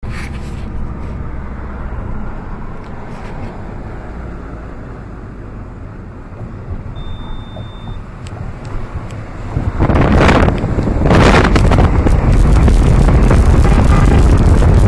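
Low, steady road and engine rumble inside a moving car. About ten seconds in, heavy wind buffeting hits the microphone in two loud gusts, then stays as a constant loud rush of wind as the camera is held out of the car's window at speed.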